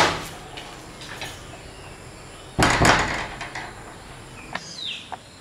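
Wooden door being handled and shut: a loud thump right at the start, a longer clattering bang about two and a half seconds in, then a few light knocks and a short squeak near the end.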